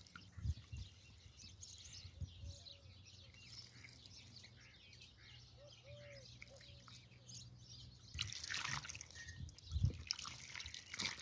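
Faint birds chirping, with a few soft knocks of handling. About eight seconds in, water poured from a clay jug starts splashing over potatoes in a wire basket as they are washed, the loudest sound here.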